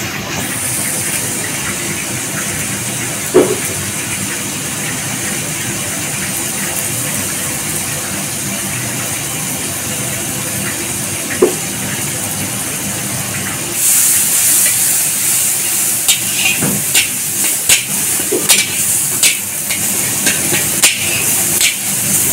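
Onion-and-spice masala frying with a steady sizzle in a large iron kadai, with an occasional single knock of the iron spatula. About fourteen seconds in the sizzle grows louder and the spatula scrapes and clacks against the pan as the masala is stirred.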